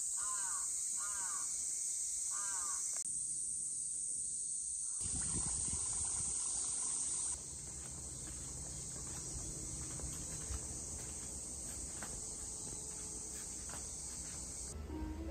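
Cicadas droning in a steady, high-pitched summer chorus, with a crow cawing three times in the first few seconds. A low rumble joins for a couple of seconds in the middle.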